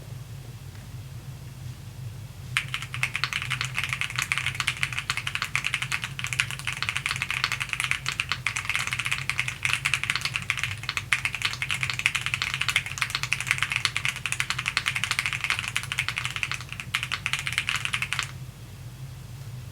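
Fast typing on a mechanical keyboard with Cidoo Matte linear switches, dense key clacks starting about two and a half seconds in and stopping a little before the end, over a steady low hum.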